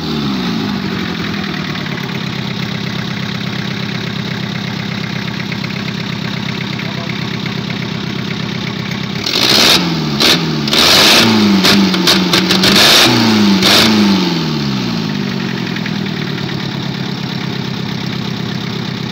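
Swapped-in Hyundai diesel engine idling steadily, revved by hand at the throttle in several quick rises and falls about halfway through, then settling back to idle.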